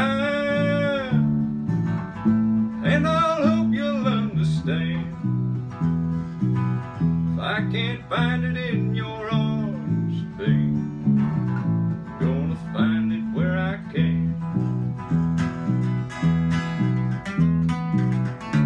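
Dreadnought acoustic guitar strummed in a steady country rhythm, with a man's voice singing long, wavering phrases over it in several spells through the first three quarters; near the end the guitar carries on alone with sharper strum strokes.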